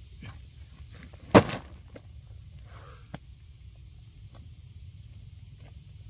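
A single sharp knock about a second in, with a fainter click a couple of seconds later, over steady high-pitched insect chirring and a low rumble.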